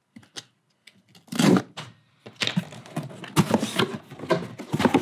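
Cardboard shipping box being handled and opened: a short scrape about a second and a half in, then a busy run of cardboard and tape rustles, scrapes and knocks.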